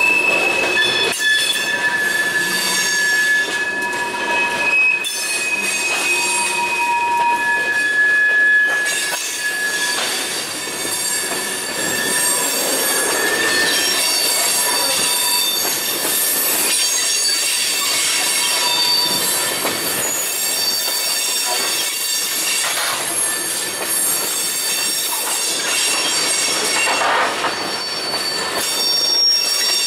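Loaded freight train of steel tank cars rolling past, its wheels squealing on the rails in several high, shifting tones that come and go over the steady rumble of the cars, with an occasional clack.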